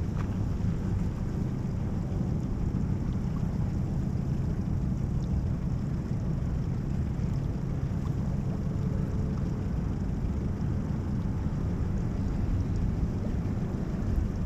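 Boat's outboard motor running slowly with a steady low rumble, with some wind on the microphone.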